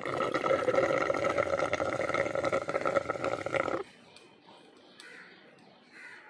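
A drinking sound effect added in editing: a loud, buzzing noise with several steady tones and a rapid flutter, lasting nearly four seconds before it cuts off suddenly.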